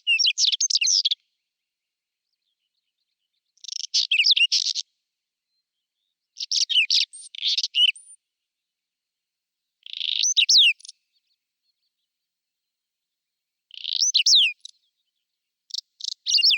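Whinchat singing: about six short phrases of quick, varied notes, each about a second long, with pauses of two to three seconds between them.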